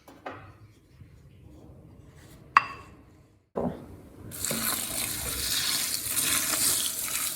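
Light kitchen handling with one ringing glass clink, then after a brief break a steady rush of liquid being poured.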